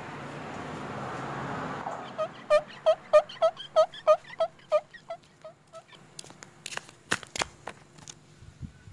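A vehicle passes and fades out about two seconds in. Then an animal calls a quick, even series of about sixteen short pitched notes that grow fainter, followed by scattered sharp clicks and crackles near the end.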